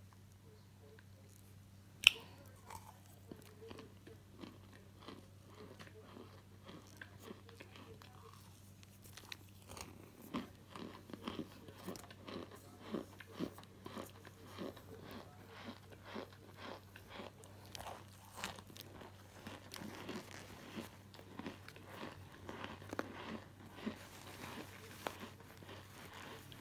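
Fingers crushing and crumbling dry chunks of starch in a pan. The soft crunches are sparse at first and become frequent from about ten seconds in, over a low steady hum. A single sharp click about two seconds in is the loudest sound.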